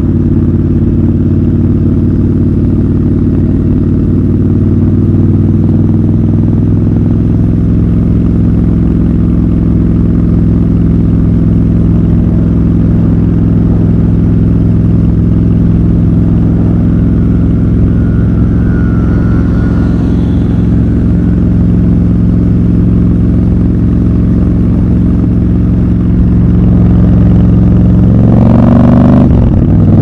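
Triumph Scrambler 1200 XC's parallel-twin engine running at a steady cruise. Near the end the engine gets louder, and the revs climb sharply and then drop.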